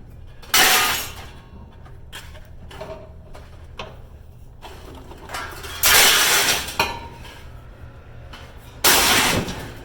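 Pieces of scrap metal tossed onto a metal pile, crashing and clanking three times: once near the start, once around the middle with a smaller follow-up clank, and once near the end. Each crash dies away within about a second, over a low steady hum.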